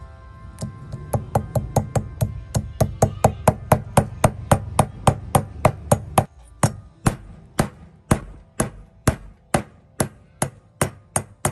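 Hammer blows on a metal drift, driving a valve seat insert into a small engine's cylinder head: a long run of sharp metallic strikes, about three a second, slowing to about two a second after six seconds.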